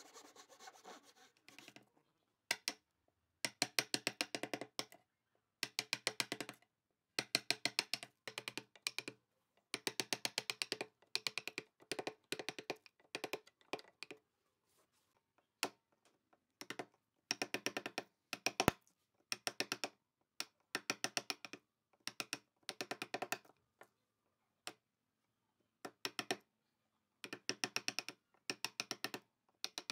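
A hand saw finishing a cut through a softwood block, then a wood chisel being struck in bursts of rapid knocks, each about a second long with short pauses between, as it chops out a notch in the wood.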